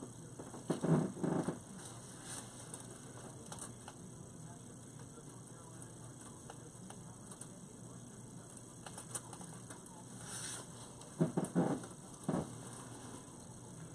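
Dry grapevine wreath crackling and rustling in short bursts as it is handled and pipe cleaners are pushed through and twisted around the vines, once about a second in and again near the end.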